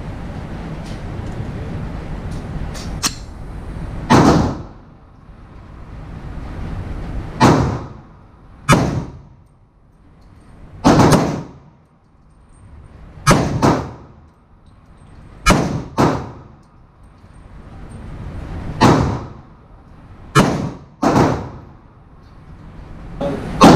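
About eleven pistol-calibre gunshots from a Glock 31 (.357 SIG) fired from a Micro Conversion Kit carbine chassis. The shots are deliberate and aimed, one to three seconds apart, each ringing in the indoor range.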